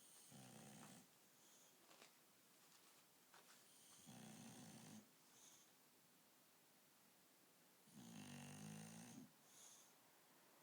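Bulldog snoring in deep sleep: three slow snores about four seconds apart, each lasting about a second, with a short faint high hiss after each.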